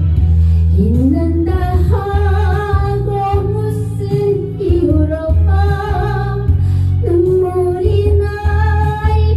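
Music: a Korean ballad song played over a backing track with a steady bass, and a woman's voice holding long notes with vibrato.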